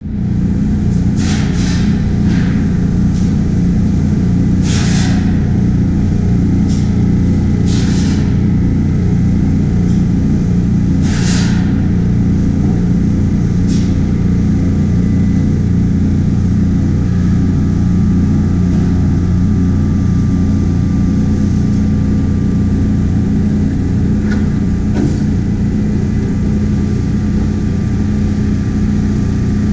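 Carter Day fractionating aspirator, an electric impeller-type grain aspirator, running: a steady loud hum of its motor-driven impeller and air flow. Several brief hissing rushes come in the first half, and a faint high whine joins about halfway.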